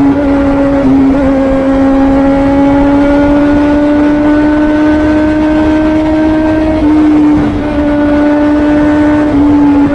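Yamaha XJ6 motorcycle's inline-four engine running with a loud, steady engine note that drifts slowly in pitch and shifts briefly about seven seconds in.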